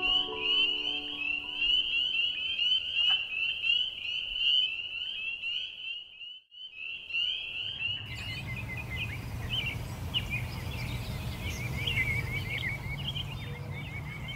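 Chorus of spring peepers: many short, rising peeps overlapping in a dense, high-pitched trill. About eight seconds in the chorus stops and birds chirp over a low steady hum.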